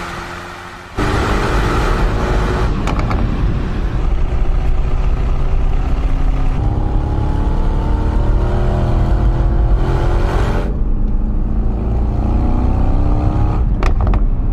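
The twin-turbo V8 of a 2025 Mercedes-AMG GT 63 Pro running hard under acceleration. Its pitch climbs steadily for several seconds in the middle, then the sound drops back to a lower rumble about two-thirds of the way in.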